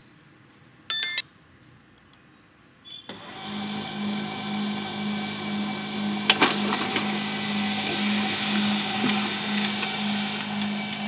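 HP LaserJet P1108 laser printer printing a page: after a short high chirp about a second in, the printer's motor and rollers start about three seconds in and run steadily with a pulsing low hum, broken by a single sharp click about six seconds in.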